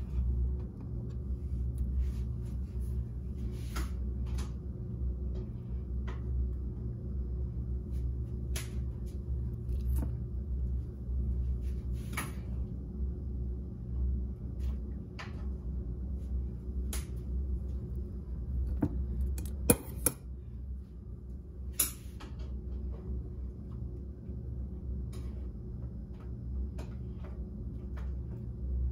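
Scattered light clicks and taps as boiled shrimp and small red potatoes are set into a ceramic bowl, with two sharper knocks about two-thirds of the way through, over a steady low hum.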